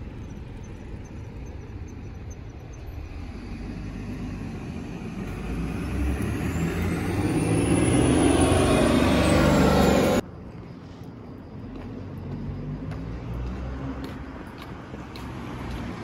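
A motor vehicle drives close past on the street, swelling over several seconds to its loudest about eight to ten seconds in, then cuts off suddenly; lower traffic noise before and after.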